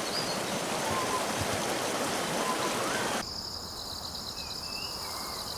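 Steady rushing of water with a few faint bird chirps. A little past halfway it cuts off abruptly and gives way to a steady, high, pulsing insect trill with a faint bird call.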